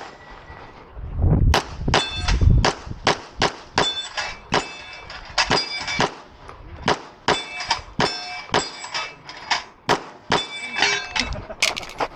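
A string of pistol shots, about two a second, with many of them followed by the clang of a hit steel target ringing.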